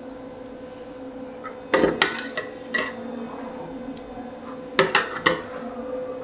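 Slotted metal serving spoon clinking and scraping against a steel pot and a ceramic plate as biryani rice is served: a few sharp clinks about two seconds in and a quick cluster of three about five seconds in, over a steady faint hum.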